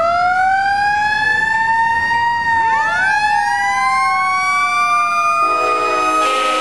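Two Federal Q mechanical sirens on fire trucks wailing: one winds up, peaks about two seconds in and slowly coasts down while a second winds up from about halfway through. A loud multi-note horn chord joins near the end.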